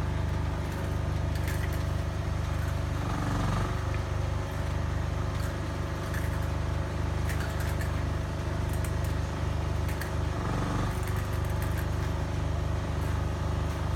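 An engine running steadily with a low hum; twice its note shifts briefly. Faint scattered clicks sound over it.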